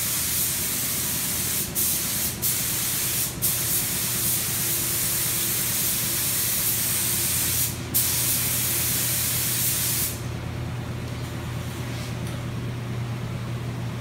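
Paint spray gun hissing as a coat of clear coat is sprayed, with four brief breaks where the trigger is let off, then cut off about ten seconds in. A steady low hum runs underneath.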